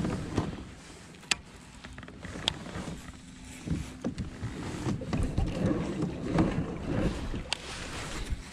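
Fishing-kayak sounds: water sloshing and lapping against the hull, with irregular light knocks and a few sharp clicks from the rod and reel being handled.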